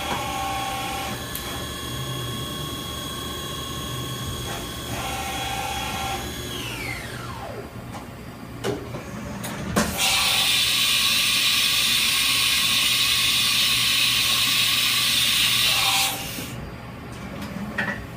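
Haas VF-2 CNC vertical machining center's spindle whining steadily at speed, then winding down with a falling whine. Two sharp clicks follow, then a loud steady hiss for about six seconds that cuts off suddenly.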